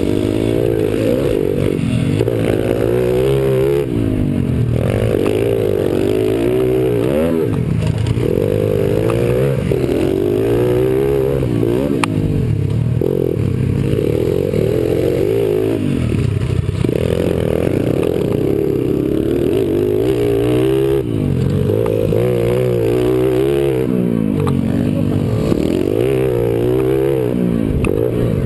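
Mini dirt bike engine running close by, revving up and down over and over as the throttle is opened and closed, each climb in pitch lasting a second or two.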